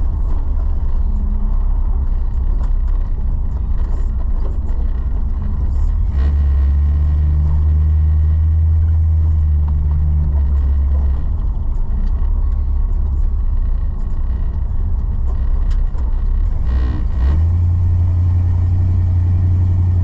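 1981 Chevrolet C10 pickup driving, heard from inside the cab: a steady low engine and exhaust drone that grows louder for several seconds in the middle, then steps up in pitch near the end as the truck speeds up.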